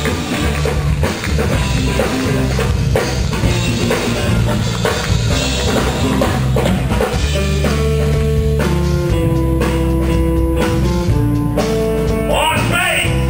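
Live band playing a rock and blues number: drum kit beat under guitar and sustained held notes, with a singing voice coming in near the end.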